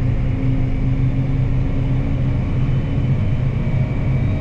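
Farm tractor engine running steadily at road speed while towing a grain wagon: a continuous low drone, with a higher hum over it that fades out about three seconds in.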